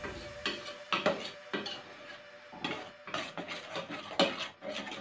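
A cooking spoon stirring and scraping thick curry in a stainless steel pot, in irregular strokes with light clinks against the pot's side. The curry is being cooked down until the oil separates.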